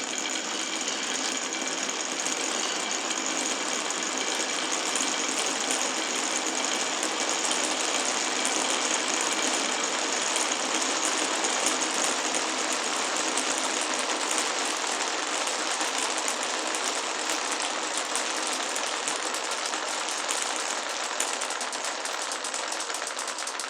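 Many glass marbles rolling and rattling down a wooden marble run, a steady dense clatter of rapid small clicks.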